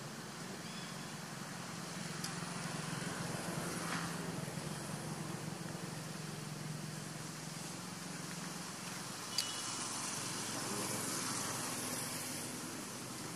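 Steady outdoor background noise with a low droning hum through most of the first nine seconds and a single sharp click about nine seconds in.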